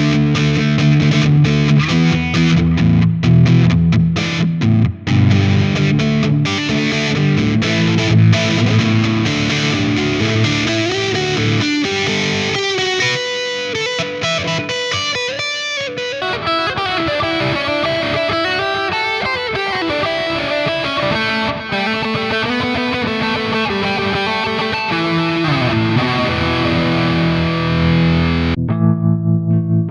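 Chibson Gold Top electric guitar played through distortion, strumming chords and then playing single-note lines with string bends. The playing stops abruptly a second or so before the end.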